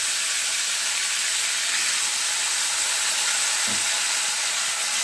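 Chicken pieces frying in hot oil in a kadai, a steady sizzle.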